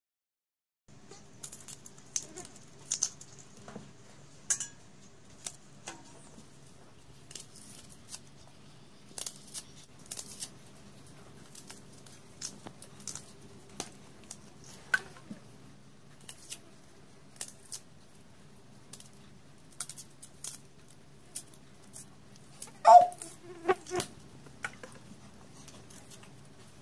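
Small onions being peeled with a kitchen knife: irregular ticks and crackles of the blade catching and the papery skins snapping off. Near the end there is a louder clunk as a peeled onion drops into a steel bowl of water. A faint steady low hum runs underneath.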